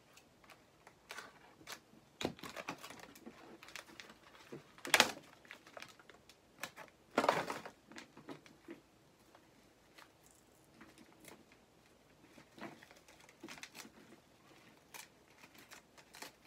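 Doll packaging being handled by hand: scattered light clicks and plastic crinkling, with two louder rustles about five and seven seconds in.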